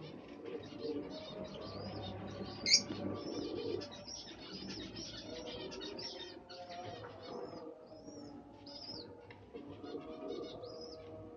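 Birds chirping: a steady run of short, high chirps, with one louder, sharper call about three seconds in.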